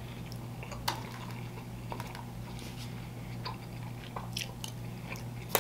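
Quiet eating sounds: chewing, with scattered clicks and light scrapes of a spoon against a foil takeout tray, the sharpest click near the end. A steady low hum runs underneath.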